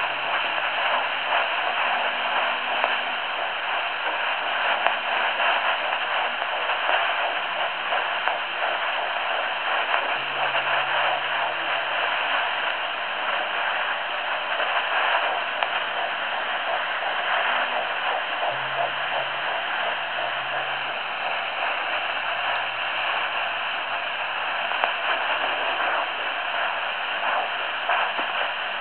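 Steady hiss from a handheld fetal Doppler's speaker as its probe searches the lower abdomen, with the fast heartbeat of a 9-week fetus faintly pulsing under it.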